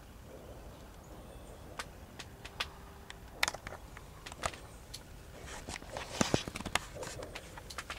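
Deer walking through dry leaf litter and twigs: scattered snaps and crunching rustles, growing denser about six seconds in.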